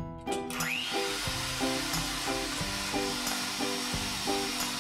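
Cuisinart electric hand mixer starting up with a short rising whine, then running steadily as its beaters whisk eggs and sugar in a stainless steel bowl. Background music plays throughout.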